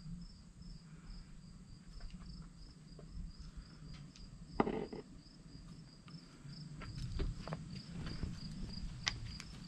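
Insects chirping steadily, a high pulse repeating about three times a second. A few faint clicks and a single knock about halfway through sound over it.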